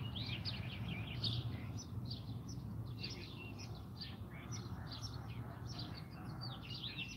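Small birds chirping, many short high chirps in quick succession, over a low steady hum.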